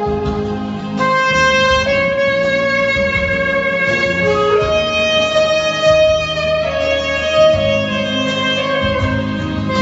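Saxophone playing a slow melody of long held notes, some lasting two or three seconds, over an instrumental backing track.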